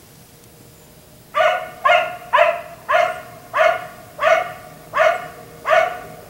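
Black Labrador retriever barking: a steady series of eight barks beginning about a second and a half in, spacing out a little as it goes.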